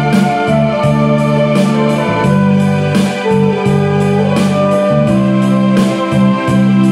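Flugelhorn playing a slow, held-note melody over a keyboard backing track with a steady beat.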